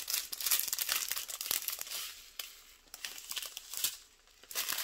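Small clear plastic bags of resin diamond-painting drills crinkling and rustling as they are handled and turned over, in irregular bursts with small sharp clicks, easing off briefly near the end.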